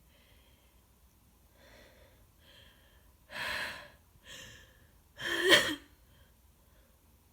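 A woman with a heavy head cold gasping in through several build-up breaths, then sneezing about five and a half seconds in; the sneeze is the loudest sound.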